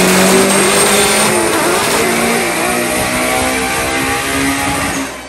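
A car engine running steadily, easing off a little near the end.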